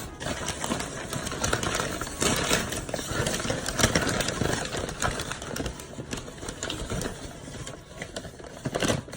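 Paper packing material rustling and crackling as a mailed plant is unwrapped from its paper and tape.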